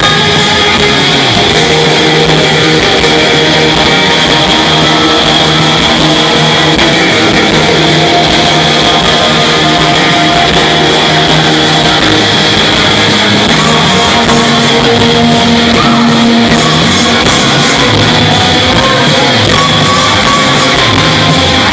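Live rock band playing loud and without a break: electric guitars over drums, recorded from within the crowd.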